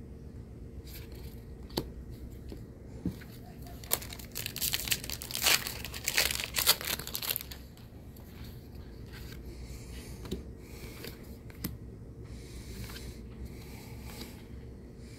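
Foil wrapper of a Magic: The Gathering draft booster pack crinkling and tearing open in a loud burst of about three seconds, starting about four seconds in. A few light clicks of cards being handled come before and after it.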